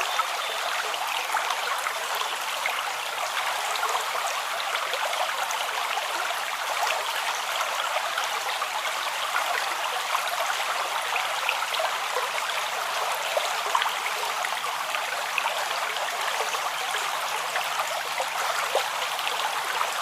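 A small creek running steadily over stones: continuous babbling and trickling water with little splashes.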